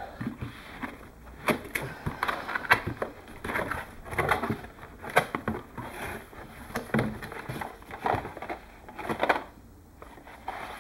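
Cardboard packaging being handled as a box is opened: the lid lifted off, flaps folded back and a cardboard insert lifted out, with irregular scrapes, rustles and knocks.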